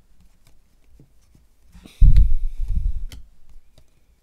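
Hands handling a stack of football trading cards close to the microphone: light card clicks, then about two seconds in a loud rubbing rumble with a hiss lasting about a second.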